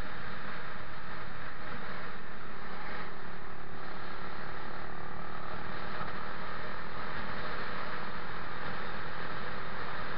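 Steady rush of wind and road noise on the microphone of a camera riding on a moving vehicle, with a low rumble underneath.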